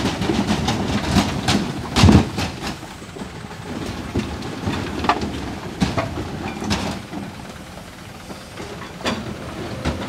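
Steel excavator bucket scraping and knocking against a dump truck's steel body as it digs out soil and stones, over the steady rumble of the diesel hydraulic excavator's engine. Irregular knocks come throughout, the loudest about two seconds in.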